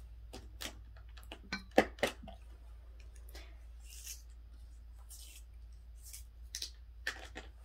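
Coloured pencil being sharpened in a manual pencil sharpener: irregular short scraping strokes and sharp clicks, the loudest clicks about two seconds in.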